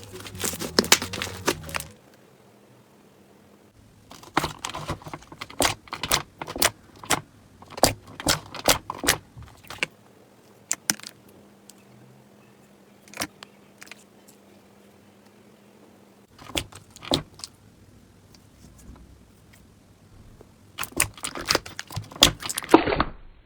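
Slime being squeezed and pressed by hand, making sharp clicks and crackling pops in several bursts with quiet gaps between them.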